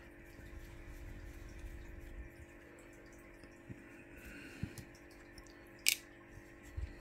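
Faint clicks and taps of small metal parts and screws being handled during the teardown of a nitro RC engine, with one sharper click about six seconds in, over a low steady hum.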